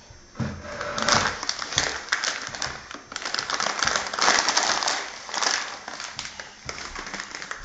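Plastic packet crinkling and rustling as a baby grabs and shakes it, in irregular crackly bursts that are loudest about a second in and again about four seconds in.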